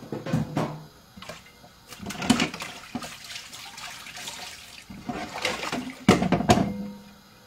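Water running and splashing in three bursts, with a few knocks and clatters between them.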